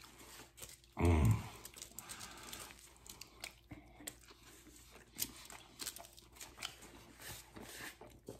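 Eating sounds close to the microphone: a man chewing a burrito, with faint clicks and wrapper crinkles. About a second in comes one short, low, throaty vocal sound whose pitch drops.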